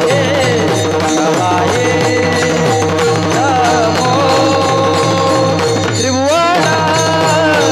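Devotional bhajan music: a singer holding long notes with sliding ornaments, sweeping sharply upward about six seconds in, over a steady hand-drum beat.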